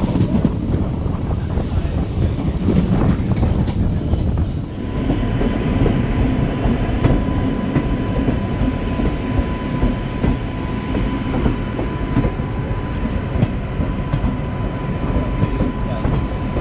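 Indian Railways passenger train running along the track, heard from an open coach door: a steady rumble and clatter of wheels over the rails. After about five seconds the sound changes, and a thin steady whine joins the rumble.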